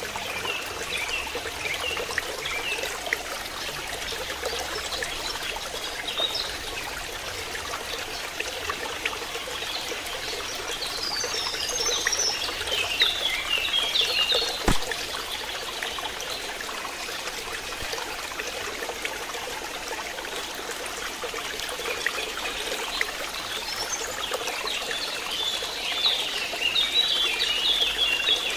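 Water trickling steadily, with small birds twittering now and then and a single sharp click about halfway through.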